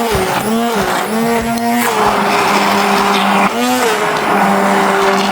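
Electric immersion blender running in thick mashed potatoes and vegetables. Its motor hum dips in pitch and recovers several times as it bogs down in the mash.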